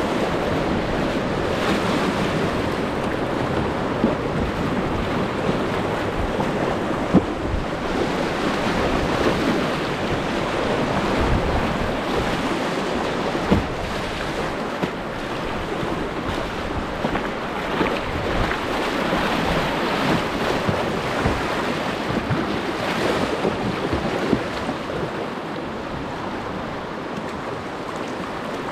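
Rushing whitewater of a creek rapid heard close up from a kayak, with wind buffeting the camera microphone and occasional short splashes. The rush eases somewhat near the end as the water flattens out.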